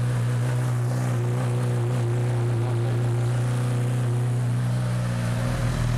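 Honda CB1000R's inline-four engine idling steadily through an aftermarket Lextek exhaust, moments after a cold start, warming up.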